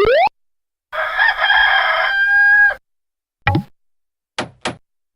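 A string of short, separate sound effects with silent gaps between them. The longest and loudest is a rooster crowing, about one to three seconds in, which starts rough and ends on a held note. It is preceded by a quick rising glide and followed by a short blip and two quick thin sweeps.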